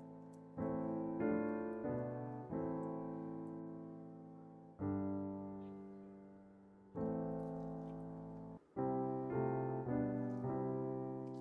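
Background piano music: chords struck one after another, each left to ring out and fade before the next.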